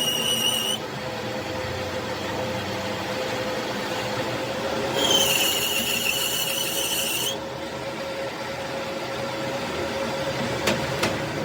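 Workshop machinery running with a steady hum, a high whining squeal at the very start and again for about two seconds in the middle, then two sharp knocks near the end.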